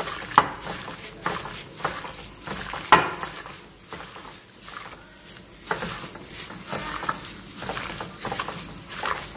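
Sliced pork, marinated with beaten egg, being squeezed and turned by a plastic-gloved hand in a ceramic bowl: wet squelching and crinkling of the plastic glove, with irregular sharp taps. The loudest tap comes about three seconds in.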